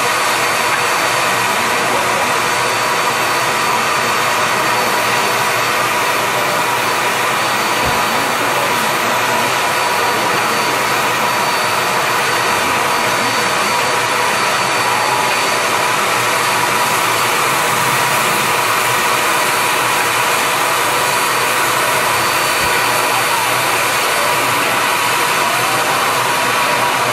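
Steam hissing steadily and loudly from a standing 0-6-0 steam locomotive, a constant rushing sound with faint thin tones running through it.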